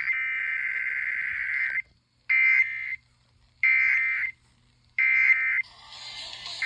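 Emergency Alert System SAME digital data bursts, the buzzy two-tone modem warble sent ahead of or after an alert. A long burst cuts off about two seconds in, then three short bursts follow about 1.3 seconds apart.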